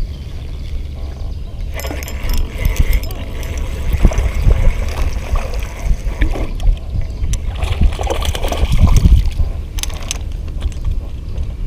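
Wind rumbling on the microphone, with two bouts of water splashing and sloshing, about two seconds in and again about eight seconds in.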